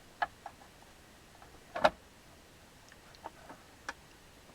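A few scattered sharp clicks and light taps, the loudest a little under two seconds in, with three smaller ones near the end.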